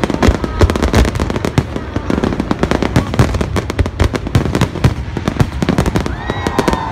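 Fireworks display: a rapid, continuous barrage of bangs and crackles from bursting shells.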